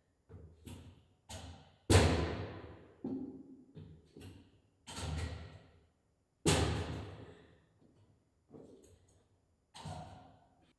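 A series of about a dozen sharp knocks and thuds at uneven intervals, each trailing off in an echo, with two much louder bangs about two seconds in and about six and a half seconds in.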